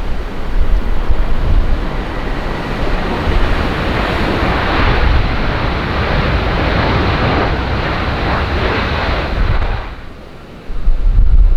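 Strong wind buffeting the microphone over the rushing noise of a jet airliner's engines, which swells for several seconds and then cuts off sharply near the end; a heavy gust hits the microphone again right after.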